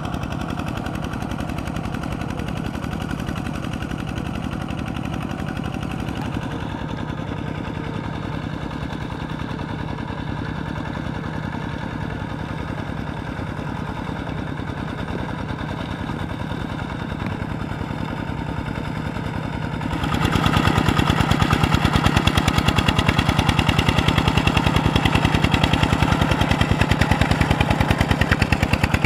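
Kubota RT120 walking tractor's single-cylinder diesel engine chugging with rapid, even exhaust beats as it drags its cage wheels through deep paddy mud. It gets clearly louder about two-thirds of the way in.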